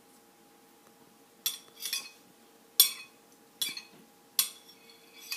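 Spoon clinking against a soup bowl while eating, about five sharp ringing clinks starting about a second and a half in.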